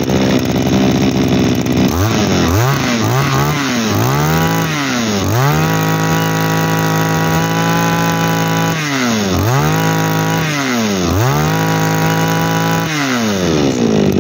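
Komatsu BC2300 brush cutter's small two-stroke engine running: it idles, is revved in several quick blips, held at high revs, blipped twice more and held high again, then drops back to idle near the end. A freshly serviced used engine running well, with strong compression by the seller's account.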